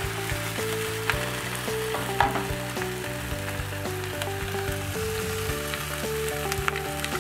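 Whole cleaver wrasse shallow-frying in a non-stick pan over medium heat: a steady sizzle with scattered small crackles and a sharper pop about two seconds in.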